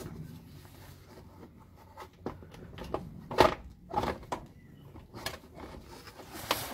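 Plastic twin-fan radiator shroud being worked down from under a Ford Mondeo ST220: scattered knocks, clicks and scrapes of plastic against the car and its wiring loom, the loudest knock about three and a half seconds in.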